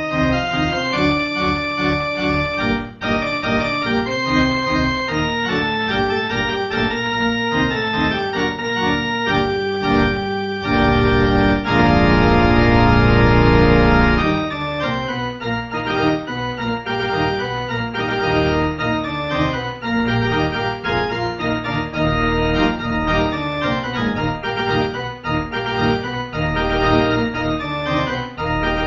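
Organ playing a closing voluntary, a medley of tunes on the theme of money: moving chords and runs, with a louder full chord held for a few seconds about a third of the way in.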